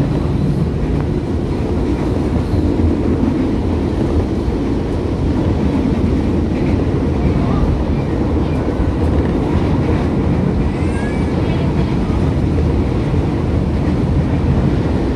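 Interior of a JR 203 electric commuter train running at speed: a steady, loud rumble of wheels on the rails and the moving carriage.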